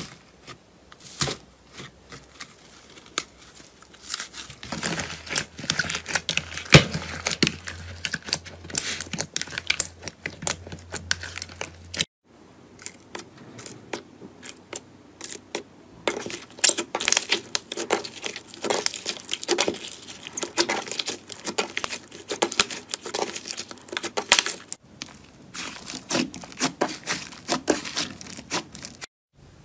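Slime being pressed, torn and kneaded by hand, giving dense, irregular crisp crackling and popping. The sound breaks off abruptly twice, about twelve seconds in and again just before twenty-five seconds, as one clip gives way to the next.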